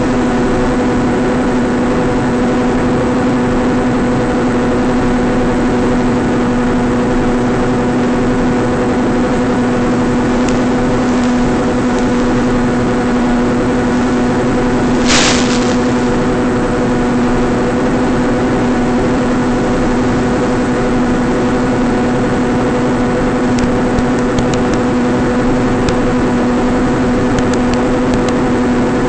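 Small electric motor and propeller on a foam flying wing, a steady buzzing drone at an even pitch that points to constant throttle in level flight. About halfway through there is a brief burst of hiss, and a few faint crackles come and go.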